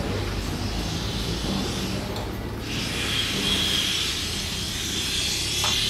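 Steady hiss of steam from a distant steam locomotive, coming in about two and a half seconds in, over a low steady engine hum.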